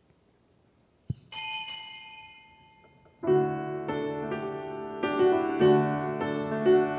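A single bell-like ring about a second in, fading away, then piano chords begin about three seconds in and carry on: the introduction to the sung entrance psalm.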